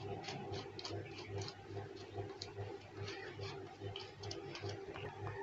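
Faint scratchy ticks of a glue brush dabbing and stroking along a cardboard box, over a low hum that pulses in a steady rhythm.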